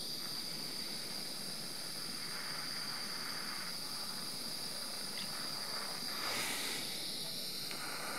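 Small plumber's propane torch burning with a steady hiss, its flame heating a brass model-locomotive buffer for silver soldering.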